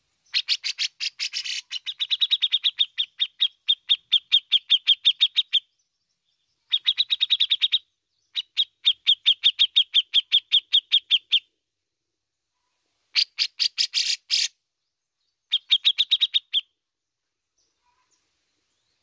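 Grey-cheeked bulbul (cucak jenggot) calling in runs of rapid, evenly repeated notes, about five a second, broken by short pauses. The runs last from about one second to five seconds.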